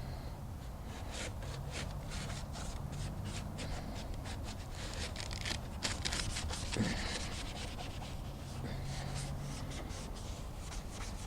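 Hand scuffing of a painted plastic bumper: many quick, irregular rubbing strokes of an abrasive pad or paper over the cured clear coat, preparing it for fresh base coat.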